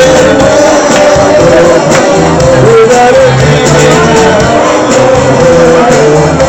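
Music with singing over a stepping bass line, loud and continuous.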